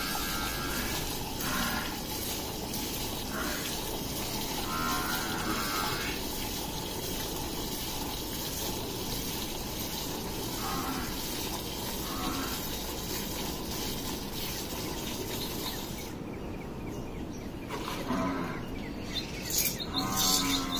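Gir cow being milked by hand: streams of milk squirting into a steel bowl over a steady hiss, with a few short calls now and then.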